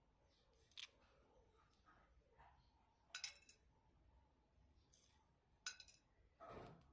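Faint eating sounds: a few short, crisp clicks and crackles spaced over several seconds, then a duller, fuller sound near the end.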